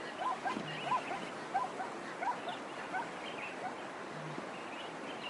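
Many animals giving short yelping calls, several a second and overlapping, over a steady background hiss.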